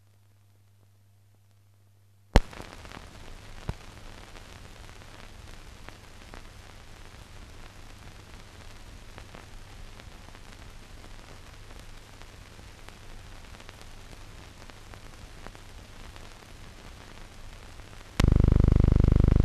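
Hiss and crackle of an old newsreel film's blank soundtrack. A loud click about two seconds in sets it off, and a smaller pop follows a second later. Near the end a much louder steady buzzing tone cuts in abruptly.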